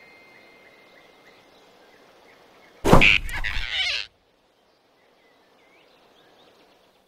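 Cartoon grab sound effect: faint forest ambience with small bird chirps, then about three seconds in a sudden loud swish lasting about a second that cuts off abruptly, leaving near silence with faint chirps.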